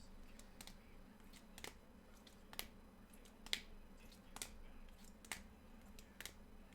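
Basketball trading cards being flipped or set down one after another, a sharp click about once a second.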